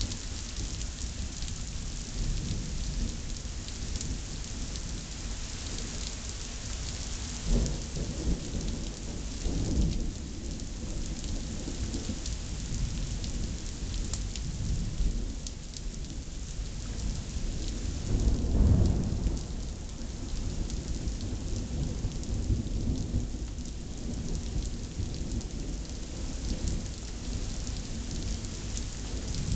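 Thunderstorm: rain falling steadily throughout, with low rumbles of thunder rolling in and out. Two rumbles come about a quarter and a third of the way in, and the loudest comes a little past the middle.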